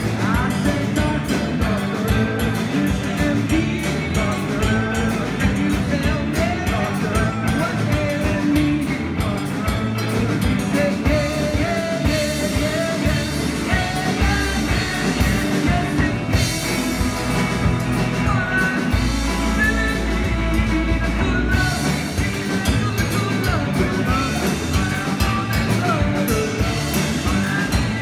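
Live rock band playing: electric guitars and a drum kit, with a man singing lead.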